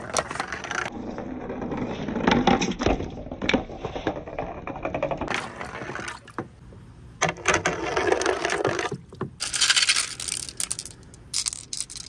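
Marbles rolling along a water marble run, with a run of clicks, clinks and knocks against the track over the sound of running water.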